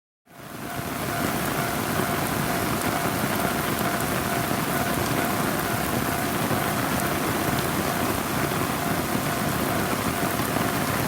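Heavy rain falling as a steady, even hiss that fades in within the first second, with a faint steady tone beneath it.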